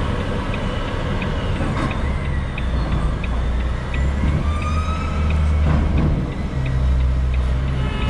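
Low, steady rumble of a Volvo FH500 truck's diesel engine idling, heard from inside the cab, growing louder about two seconds in. A light ticking about twice a second runs over it.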